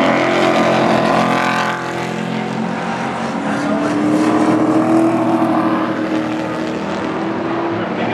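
Pro Trucks race trucks' engines running hard on track, the engine notes rising and falling as the trucks come through the turn and pass.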